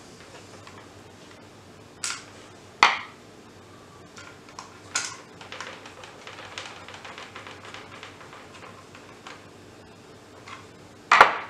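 Small sharp clicks and taps of a Scalextric digital hand controller's plastic casing and screws being handled during reassembly, a few separate knocks with the loudest near the end, and a run of faint rapid ticking in the middle.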